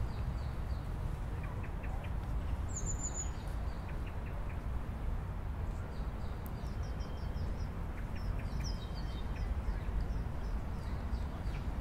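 Outdoor ambience: a steady low rumble under small birds chirping, with short high-pitched chirp series about three seconds in, twice in the middle and again near the end.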